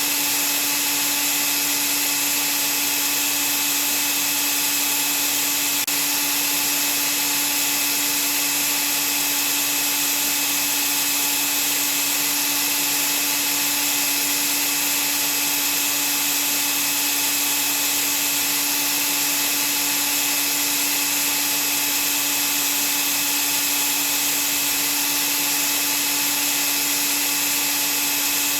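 Vacuum cleaner running steadily: an unchanging rush of air with a steady motor hum underneath.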